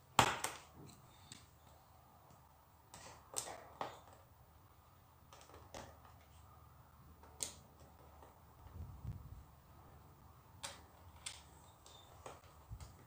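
Small Lego slope pieces clicking as they are pulled off and pressed onto a Lego baseplate: scattered sharp clicks a second or more apart, the loudest right at the start.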